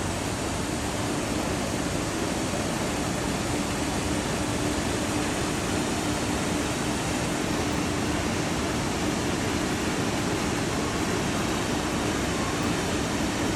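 Canal lock levelling: a steady rush of water pouring through the lock's sluices, with a constant low hum alongside.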